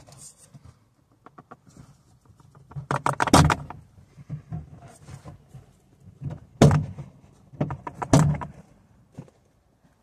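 Plastic retaining clips of a car's rear door trim panel being popped out as the panel is pulled off the door: a series of sharp snaps and knocks, with a cluster about three seconds in and two more strong ones later.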